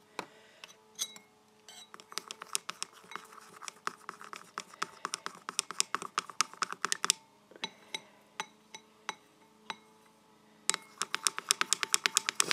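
Rapid light clicking and tapping of small hard objects in two runs: one about two seconds in lasting some five seconds, another starting near the end, with scattered single clicks between.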